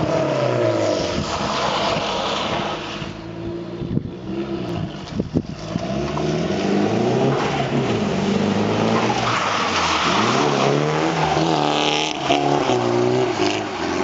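Nissan S14's engine revving up and down again and again as the car drifts on wet tarmac, with tyre and spray noise underneath. The revs drop off briefly about three seconds in, with a few sharp knocks, then climb and fall repeatedly.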